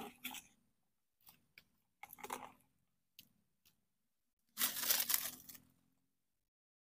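Crinkling, crunching rustles of dry material being handled, in several short bursts, the longest and loudest about two-thirds of the way through.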